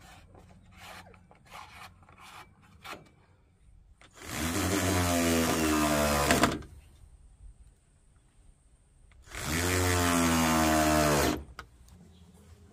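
Electric power tool cutting wood, run twice for about two seconds each, its motor pitch sinking slightly during each run. Light knocks and taps of wood come before the first run.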